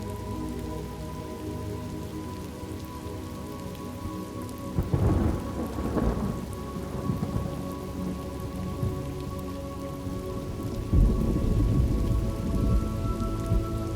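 Thunderstorm ambience: steady rain with two rolls of thunder, one about five seconds in and a longer one about eleven seconds in.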